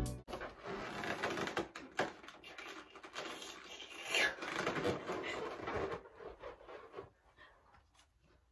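Faint clattering and rustling of small objects being handled and moved about, with a run of sharp clicks. It dies away about seven seconds in.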